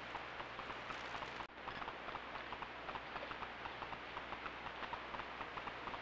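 Trail camera's own recording noise: a steady hiss with a fast, even ticking of about five or six ticks a second, broken by a brief dropout about one and a half seconds in.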